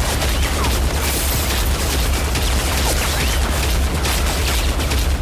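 Action-film soundtrack of a brawl: a dense, loud wash of crashing and booming with a heavy, steady bass underneath, which cuts off sharply at the end.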